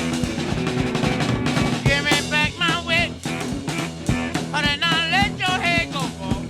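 Rock music with a steady beat, electric guitar and singing; the vocal line comes in about two seconds in and again about halfway through.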